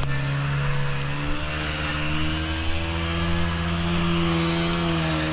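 Small petrol engine of a yard power tool running steadily at high speed, its pitch shifting slightly a few times.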